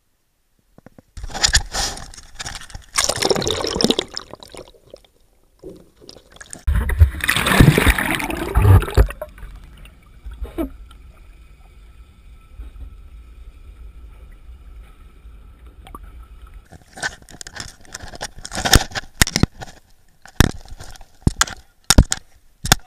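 Water sloshing and gurgling around an action camera as it is plunged into the sea, then a muffled underwater hush. Near the end come a string of sharp knocks and clicks as the camera is handled against the paddleboard's deck.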